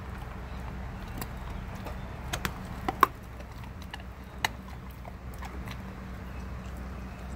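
German Shepherd chewing raw food, its jaws making scattered sharp crunches and clicks over a steady low hum. The sharpest crunch comes about three seconds in.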